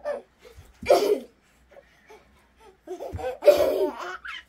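A baby laughing and squealing in three short bursts, the longest near the end.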